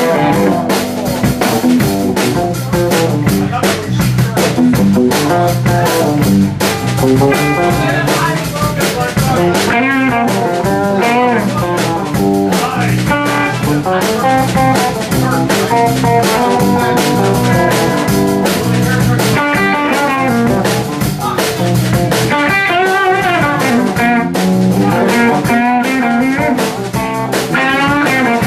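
Live blues-rock band playing an instrumental passage: electric guitars, bass guitar and drum kit, with a lead guitar line of bent, wavering notes over the steady drums.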